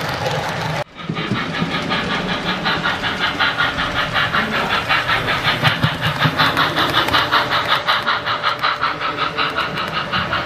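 Model steam train with freight cars running past on the layout track: a steady rhythmic beat of about three to four strokes a second over a hiss. A sudden brief gap about a second in breaks the sound.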